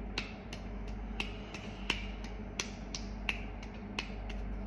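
A hand patting rapidly on the palm of the other hand, turning over between palm and back, as in the bedside test for rapid alternating movements (dysdiadochokinesis): regular slaps about three a second, stronger and weaker ones alternating.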